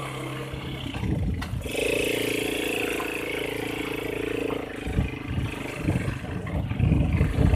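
ATV engine running under throttle on a dirt track, its note held steady for a few seconds, then irregular knocks and wind noise take over near the end.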